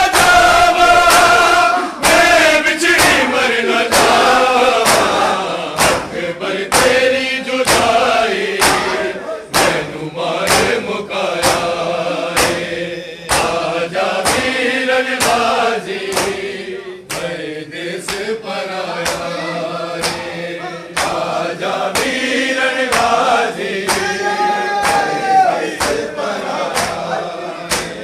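Crowd of men chanting a noha, a mourning lament, in unison, over a steady beat of bare-hand chest-beating (matam).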